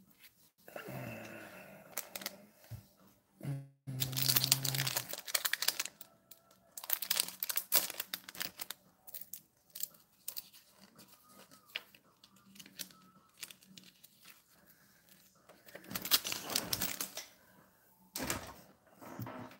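Crinkly handling noise of packaging, rustling and tearing in several separate spells with quiet gaps between, loudest about four seconds in.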